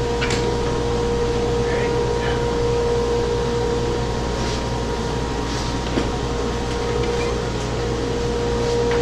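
Steady drone of running workshop machinery with a constant mid-pitched whine. A brief knock about six seconds in as the plywood sheet is handled.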